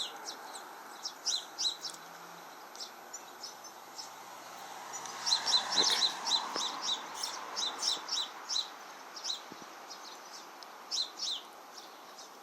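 Sparrows chirping in a series of short, high chirps, scattered at first, then a quick run of chirps in the middle and a few more near the end, over a steady background noise that swells and fades in the middle.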